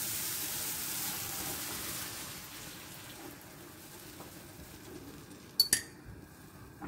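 Onion-tomato masala in hot oil in a frying pan, hissing and sizzling as a cup of water is poured in. The sizzle fades over the first couple of seconds while a wooden spatula stirs the gravy. Two sharp clinks come near the end.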